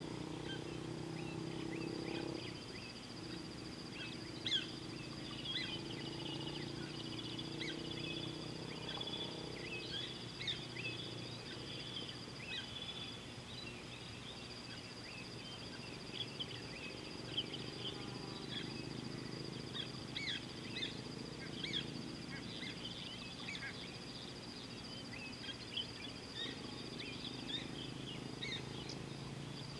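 Bush ambience: many short bird chirps and calls scattered throughout, over a steady high-pitched buzz and a low background hum.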